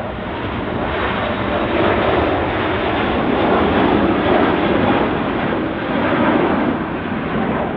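Four-engine Airbus A380-861 jet engines (Engine Alliance GP7200 turbofans) at high thrust, a loud rushing roar that swells over the first couple of seconds, holds, and eases a little near the end.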